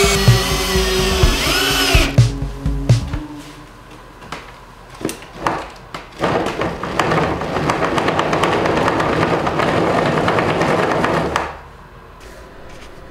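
Background music ends about three seconds in. A mountain bike's knobby rear tyre then spins on wooden log rollers: uneven knocking that builds into a steady rumble full of small knocks, and it stops abruptly near the end. The rollers are out of round, and the ride on them is too bumpy.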